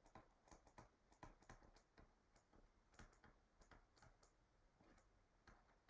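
Near silence: room tone with faint, irregular clicks.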